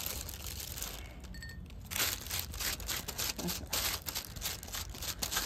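Thin plastic sheet crinkling as hands press and shape a disc of semolina dough on it, louder about two seconds in and again near four seconds.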